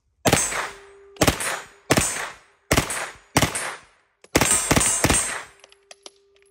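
CZ Skorpion Evo 3A1 9mm submachine gun firing six short full-auto bursts in quick succession at a very high rate of fire, the last burst the longest. The last burst empties the magazine.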